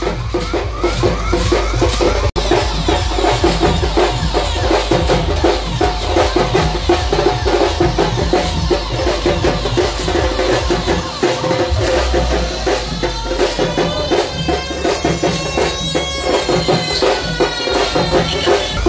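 Loud procession music driven by a fast, dense drum beat. It cuts out for an instant about two seconds in, and in the last few seconds a high, wavering melody line glides over the drums.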